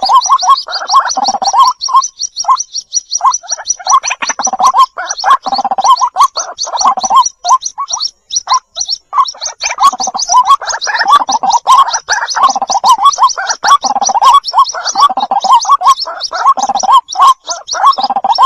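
White-breasted waterhen chicks calling for the mother bird: a rapid, even run of high thin peeps over a busier, lower chattering call that breaks off briefly twice.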